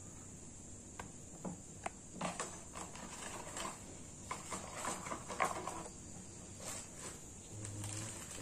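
Light rustling of cardboard and plastic packaging with scattered small clicks and taps as action-camera accessories are handled and pulled out of their box and bags, over a steady high-pitched hiss.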